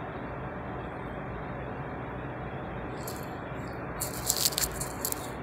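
Short hissy rustling bursts from a hand rubbing a small dog's fur close to the phone, at about three seconds in and again, louder and in a quick cluster, from about four seconds in. Under them runs a steady low background hum.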